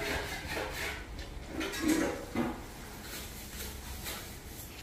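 A metal wire strainer knocking and scraping against a kadhai of frying oil: a few sharp clanks in the first two and a half seconds, then quieter, over a low steady rumble.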